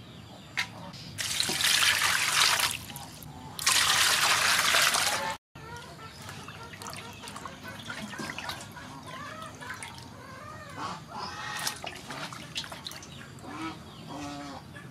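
Water pouring out of a plastic bag into an aluminium basin in two loud gushes, then quieter splashing and dripping as a giant squid is rinsed by hand in the basin water.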